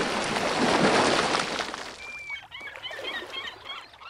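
A rushing whoosh that fades away over about the first two seconds, then a short thin whistle and a quick run of bird chirps.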